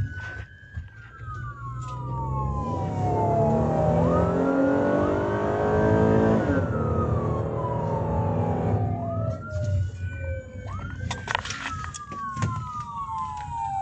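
Police car siren on a wail, each sweep rising quickly and then falling slowly over a few seconds, heard from inside the moving patrol car's cabin over the steady rumble of the car. In the middle the engine speeds up under hard acceleration, and a few sharp clicks come near the end.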